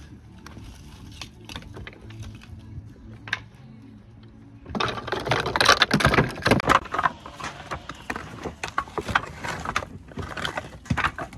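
Large old Sizun roof slates knocking, clattering and scraping as they are stripped from the roof: a few light clicks at first, then from about five seconds in a dense run of loud knocks and scrapes that thins out toward the end. A faint steady low hum sits under the quieter opening.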